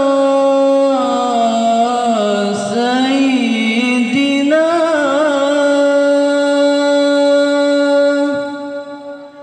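Lead singer of a marawis ensemble singing a solo, unaccompanied devotional vocal line in Arabic style, with long held notes and ornamented melodic turns. No drumming. The phrase fades out about eight seconds in.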